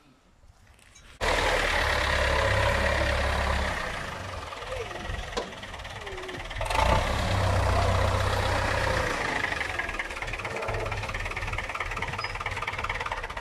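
David Brown tractor's diesel engine running. It comes in abruptly about a second in, drops back for a couple of seconds around the middle, and picks up again about seven seconds in.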